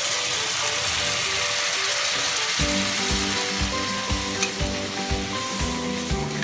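Oil and spices sizzling in a hot wok as a little water is poured over fried water lily stems and prawns, then stirred with a flat spatula, with a sharp scrape about four seconds in. Background music with a steady beat comes in about two and a half seconds in.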